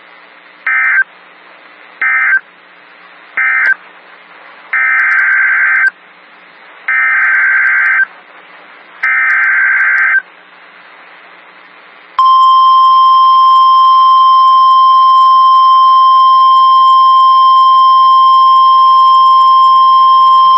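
Emergency Alert System signals on NOAA Weather Radio. First come three short digital data bursts, the end-of-message code closing the flood warning. Then three longer, buzzing data bursts of the SAME header announcing the next warning. About 12 seconds in, the steady single-pitch warning alarm tone starts and holds.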